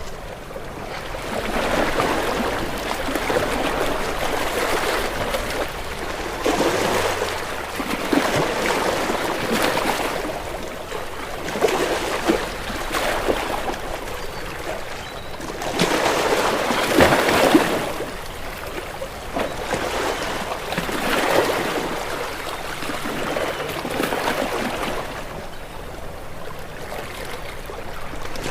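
Ocean waves breaking and washing against rocks. The surf swells and falls every few seconds, with the loudest surge about two-thirds of the way through.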